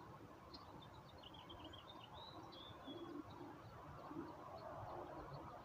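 Faint birdsong: scattered short high chirps and twitters, busiest about two seconds in, over low steady background noise.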